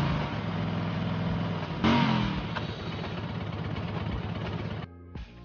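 Motorcycle engine revving and dropping back, then a sudden crash about two seconds in as the bike goes down, with the engine still running afterwards. Near the end it cuts to music.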